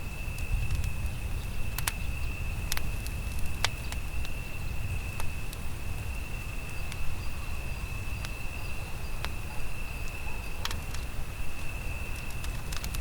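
Campfire crackling, with sharp pops at irregular intervals over a low steady rumble from the burning wood. A steady, high insect trill runs throughout.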